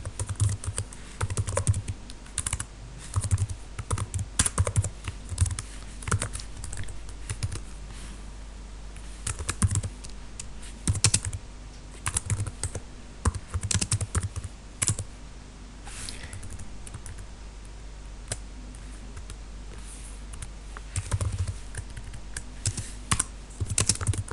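Typing on a computer keyboard: quick runs of keystrokes with short gaps, thinning out for a few seconds a little past the middle.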